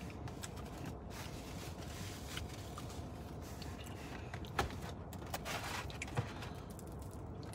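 Food and its takeout packaging being handled: scattered light clicks and rustling, with two sharper clicks in the second half. A steady low hum sits underneath in the car cabin.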